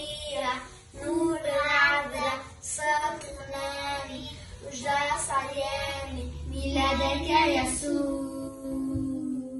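Young girls singing a Christmas hymn together, in phrases, ending on a long held note.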